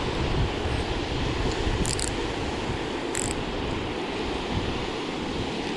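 Water rushing steadily over a concrete spillway weir. Two brief, faint high-pitched swishes come about two and three seconds in.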